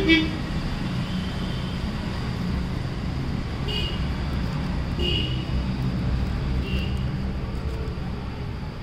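Steady low rumble of outdoor background noise, with a few faint, short high-pitched notes.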